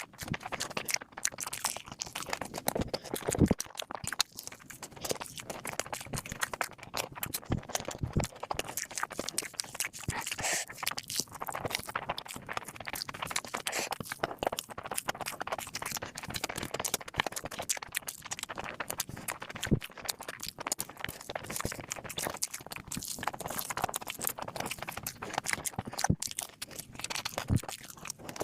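A person eating close to the microphone: irregular chewing and crunching with wet mouth clicks, going on throughout.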